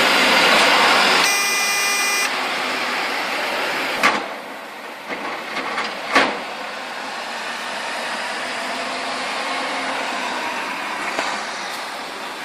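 Road traffic noise as vehicles pass, loudest in the first second or so. A brief high steady tone sounds about a second in, and two sharp clicks come at about four and six seconds.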